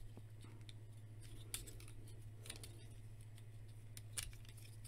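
Faint plastic clicks and clacks from a Transformers Cyberverse Dinobot Slug action figure as its stiff, tight joints are turned and its parts folded. Three sharper clicks stand out, about a second and a half in, two and a half seconds in, and just after four seconds.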